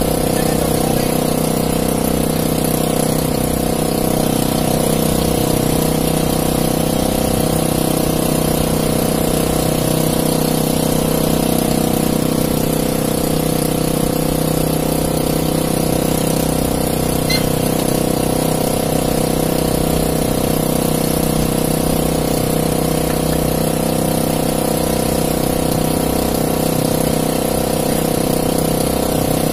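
Outrigger fishing boat's engine running steadily at low speed, an even drone with no change in pitch or level.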